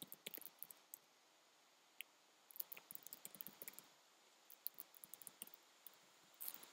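Faint keystrokes on a computer keyboard, quick clicks in short bursts with brief pauses between them.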